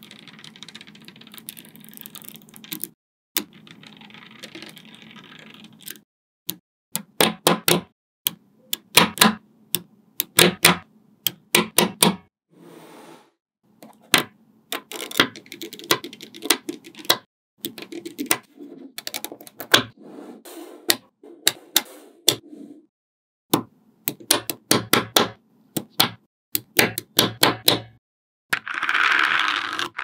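Small magnetic balls snapping together, in quick runs of sharp clicks as pieces are pressed into place. For the first few seconds there is a steadier rattle of balls rubbing and rolling against each other. A louder rushing noise starts just before the end.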